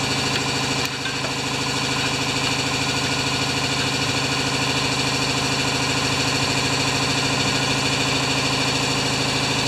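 A machine running steadily, a constant hum and whir with no change in speed.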